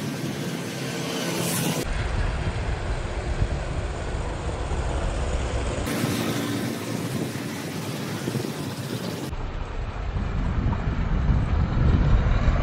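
Road traffic and vehicle engine noise heard from a moving vehicle, with a low rumble. The sound changes abruptly about 2, 6 and 9 seconds in, where short clips are spliced together.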